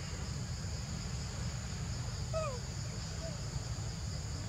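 Steady insect chorus, a constant high buzz on two pitches, over a low rumble. A short falling chirp comes about halfway through, and a fainter one a second later.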